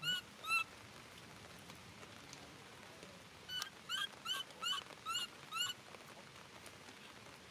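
Baby monkey crying: short, high-pitched squeaky calls, two at the start and then a bout of six at about three a second a few seconds in, over steady rain.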